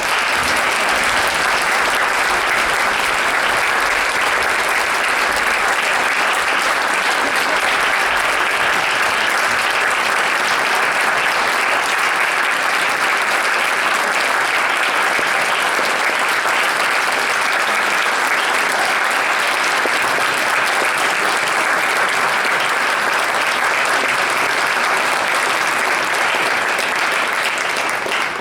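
Audience applauding, a dense, steady clapping that holds loud throughout and dies away at the very end.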